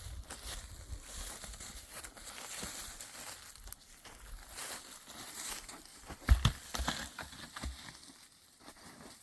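Dry brush and twigs crackling and rustling as they are handled, with irregular small snaps. There is one sharp, loud snap or knock about six seconds in.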